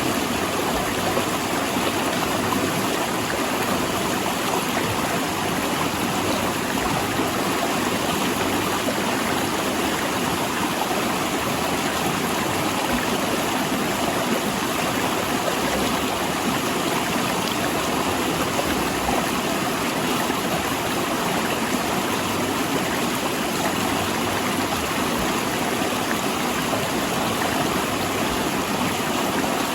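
Fast river water rushing and splashing over large rocks, a steady, unbroken noise.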